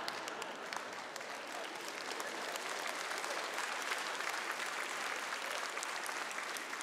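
Theatre audience applauding: a steady patter of many hands clapping.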